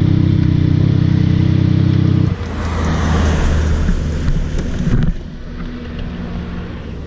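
Triumph motorcycle engine idling close to the microphone, loud and steady. About two seconds in it drops away into a passing-traffic rush that swells and fades, and a quieter steady engine hum is left near the end.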